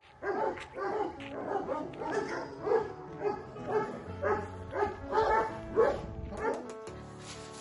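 Dog barking repeatedly, about two barks a second, over background music; the barking stops about six and a half seconds in, leaving the music.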